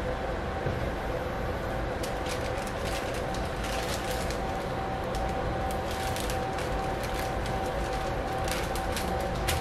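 Paper wrapper crinkling and rustling in gloved hands as a waffle is wrapped, in irregular crackles starting about two seconds in, over a steady background hum with a constant tone.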